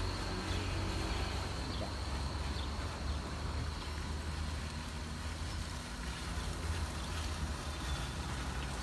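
Outdoor ambience: a steady low rumble with a thin, steady high tone over it that fades about halfway through.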